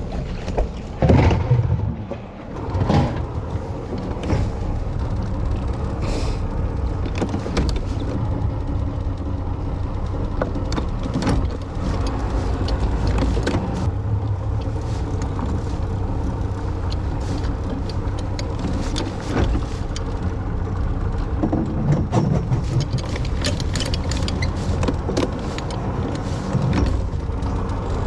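Boat engine running steadily, with a few sharp knocks in the first three seconds.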